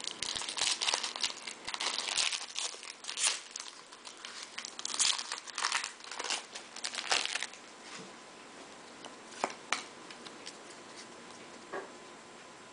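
Foil wrapper of a Bowman Jumbo pack of baseball cards being torn open and crinkled for about the first seven seconds, then it goes quieter with a few light ticks as the stack of cards is handled.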